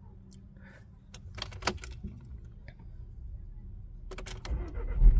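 A few light clicks and rattles as the Volkswagen Golf's ignition is switched back on, then near the end the 1.4 L turbo petrol engine cranks and fires into a steady low hum.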